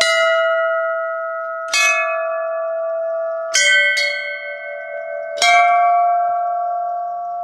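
Hanging brass temple bells rung by hand with their clappers: about five strikes, a second or two apart, on bells of slightly different pitch. Each strike rings on with a long, slowly fading tone that overlaps the next.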